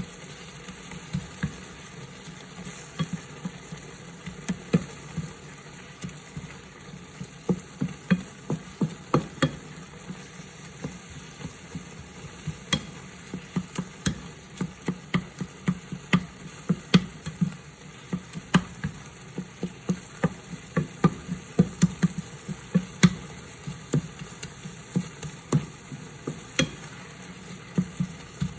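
A wooden slotted spatula stirring and mashing soft sweet potato and banana in a stainless steel skillet, knocking and scraping against the pan at an irregular pace, sometimes several times a second. A faint sizzle of the food cooking runs underneath.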